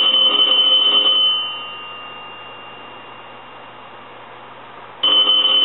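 Ringer bell of an A&E three-slot payphone ringing on a test ring, which shows that the newly fitted bell circuit works. A ring stops a little over a second in and dies away, and after a pause of about four seconds the next ring starts near the end.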